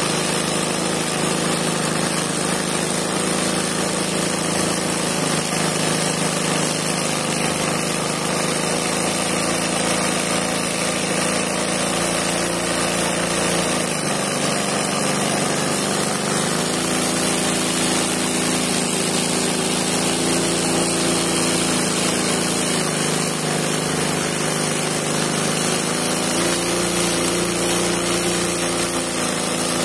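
Sewing machine running steadily at speed, stitching freehand embroidery through fabric stretched in a hoop. Its pitch dips briefly about halfway through, then picks up again.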